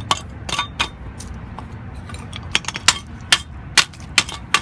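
Irregular light metallic clinks and taps, about a dozen, as brake parts (the brake pad and its broken pieces) are handled, over a steady low rumble.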